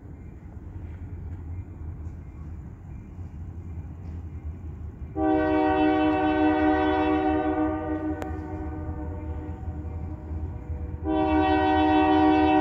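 An approaching diesel locomotive sounds its multi-chime air horn: one long blast about five seconds in that tails off, then a second blast starting near the end. Under it runs the train's low, steady rumble.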